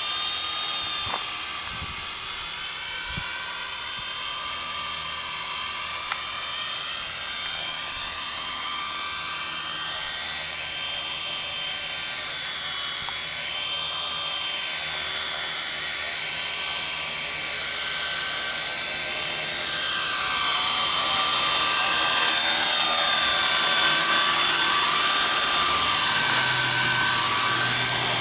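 WL912 electric RC micro helicopter flying: a high-pitched whine from its motor and rotors that rises and falls in pitch with the throttle. It grows louder during the last third as the helicopter comes in low and close.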